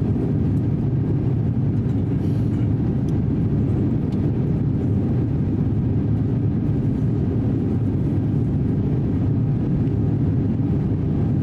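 Steady low cabin roar inside an Airbus A350-900 climbing after takeoff: the drone of its Rolls-Royce Trent XWB engines and the airflow over the fuselage, even and unbroken.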